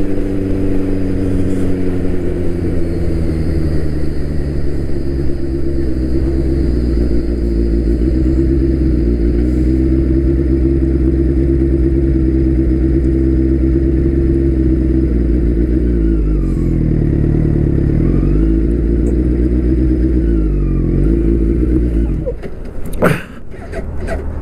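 Turbocharged Suzuki Hayabusa inline-four running under a rider's helmet microphone, with wind noise. The engine note holds steady, then dips and rises a few times as the bike slows, and drops toward idle near the end. A couple of sharp knocks come just before the end.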